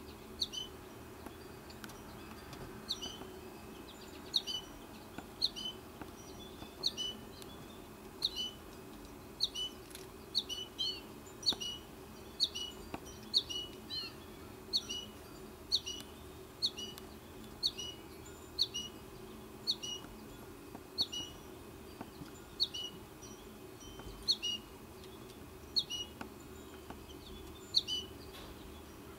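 American goldfinch fledgling giving short, high, repeated begging calls about once a second, sometimes two in quick succession, over a faint steady background hum.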